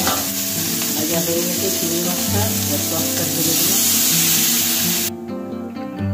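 Prawns sizzling in hot oil in a frying pan, growing to a louder hiss as tamarind water is poured in, over gentle acoustic guitar music. The sizzle cuts off suddenly about five seconds in.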